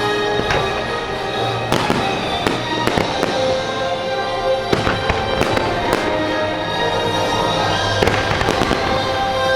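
Fireworks launching and bursting in quick, irregular bangs and crackles over a loud orchestral show score. The tones of the music are held steady.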